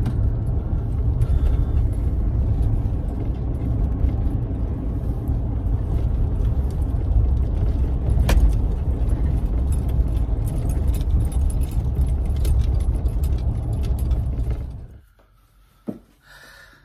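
Truck driving, heard inside the cab: a steady low road-and-engine rumble with small rattles and a sharp click about eight seconds in. The rumble cuts off near the end, leaving a quiet room with a single click.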